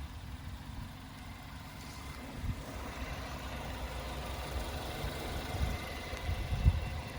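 Suzuki Jimny's 1.5-litre four-cylinder petrol engine idling steadily, heard from outside the car. A few low thumps come near the end.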